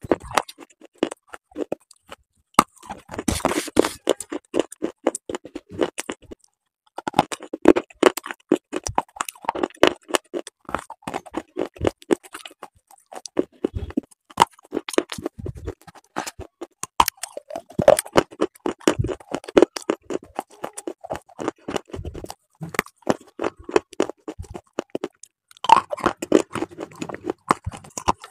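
Crunching and chewing of crumbly white slate pencil material: a dense run of sharp crunches with short pauses, the longest about six seconds in.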